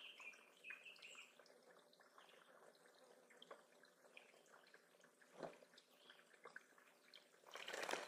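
Blue-headed Vireo bathing in a shallow pebble pond, splashing briefly about five seconds in and then harder near the end. A few short bird chirps sound in the first second over a faint trickle of water.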